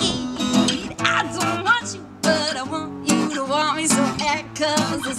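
A woman singing in short, bending phrases while strumming chords on a Cort acoustic guitar, with a brief lull about two seconds in.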